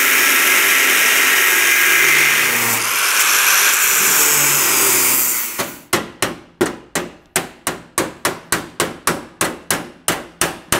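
Angle grinder grinding through the weld that holds a steel hinge on a truck door. About halfway through the grinding stops and a hammer strikes the steel hinge about three times a second, knocking it loose.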